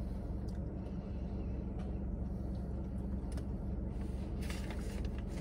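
Steady low hum inside a parked car's cabin, with a few faint clicks and a short rustle near the end.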